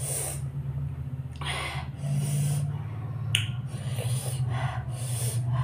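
Close-miked breathing and mouth sounds of a person eating momos: several short breaths or sniffs through the nose over a low steady hum.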